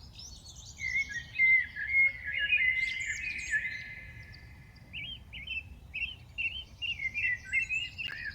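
A group of songbirds chirping and singing at once, many short calls overlapping, busiest in the first few seconds and then a run of brief repeated chirps.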